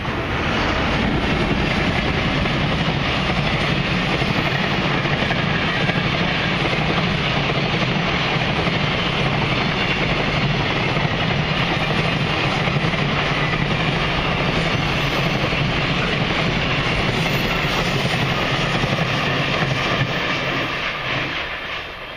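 Freight train of container wagons passing close by: steady rumble and rattle of steel wheels on the rails, falling away about a second before the end as the last wagons go by.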